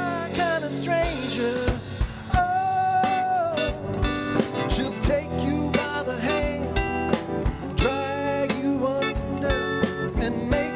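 Live rhythm-and-blues band playing: electric guitar, bass and keyboard over a steady drum-kit beat, with a male lead vocal singing the melody in phrases.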